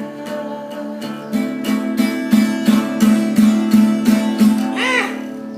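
Acoustic guitar strummed in an even rhythm, about three strokes a second, playing the closing bars of a song after the last sung line.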